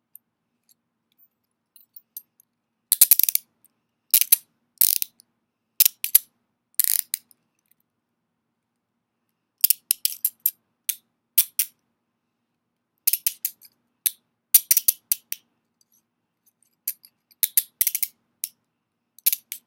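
Smith & Wesson M&P handcuffs' ratchet clicking as the swing arm is worked through the lock. The clicks come in several quick runs, with pauses of a second or two between them.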